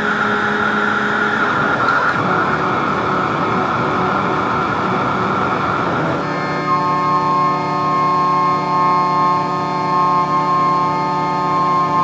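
Experimental synthesizer music: a dense noisy texture over a few steady tones. About halfway through it switches abruptly to a sustained drone of many steady tones stacked together.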